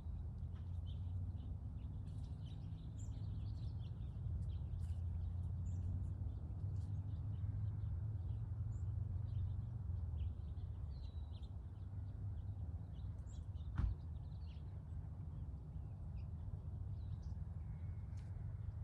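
Small birds chirping in short calls over a steady low rumble, with a single sharp click about fourteen seconds in.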